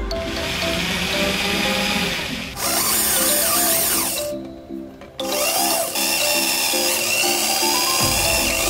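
Electric drill boring into the sheet-metal frame of a TV backlight panel, running in two spells with a short pause near the middle, the second spell carrying a steady high whine. Background music plays throughout.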